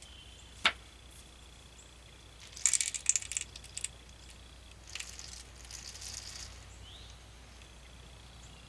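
HeviShot pellets being poured, rattling and clinking in two short runs, after a single sharp click about a second in.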